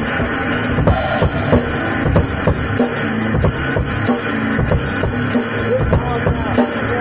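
Drum kit and electric guitar played together by one player: snare and cymbal hits keep a steady beat over low guitar notes.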